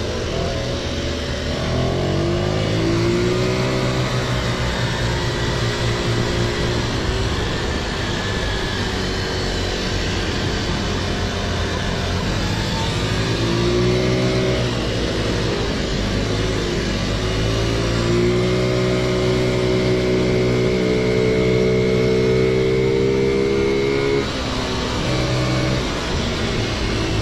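Car engine revving, heard from inside the cabin: the pitch climbs about two seconds in and again near the middle, then is held steady at raised revs for several seconds before dropping back near the end.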